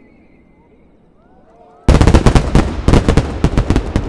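Starmine fireworks barrage: a few faint rising whistles, then about two seconds in a sudden rapid run of loud bursting shells, crackling close together.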